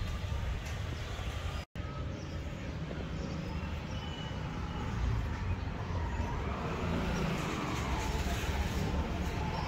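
Steady low rumbling background noise, broken by a brief dropout just under two seconds in.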